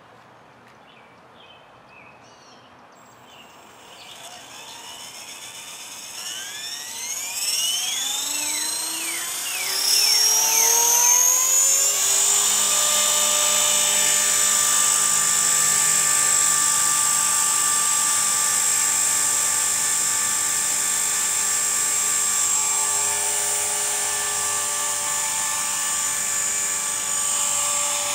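Electric EXI 450 SE RC helicopter spooling up: after a few quiet seconds the motor and rotor whine rises in pitch for several seconds, then holds a steady high whine as the helicopter lifts off and hovers.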